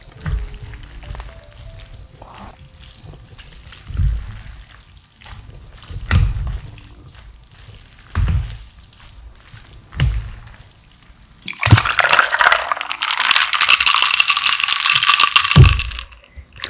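Wooden chopsticks mixing thick black-bean-sauce noodles with sliced beef brisket in a large bowl, giving soft, sticky low thumps about every two seconds. About twelve seconds in, aloe drink is poured from a plastic bottle into a glass for about four seconds, ending with a thump as it is set down.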